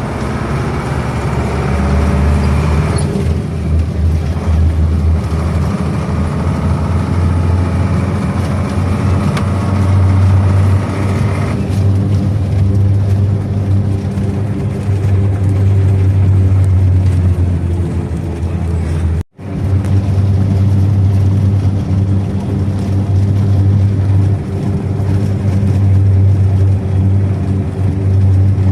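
KamAZ truck's diesel engine running steadily under way, a loud low drone, with a brief sudden break about two-thirds of the way through.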